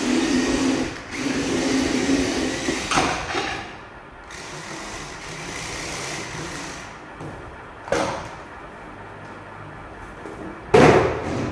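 Small electric motor and gears of a toy RC dump truck whirring in spurts, with a few sharp knocks, the loudest near the end.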